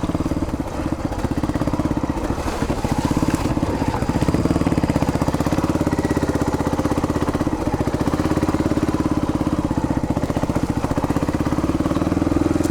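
1981 Yamaha XT500's single-cylinder four-stroke engine running steadily, with an even thump of firing pulses as the bike is ridden along a dirt track.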